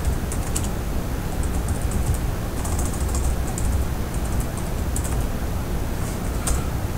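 Computer keyboard typing: irregular clusters of light key clicks over a steady low background hum.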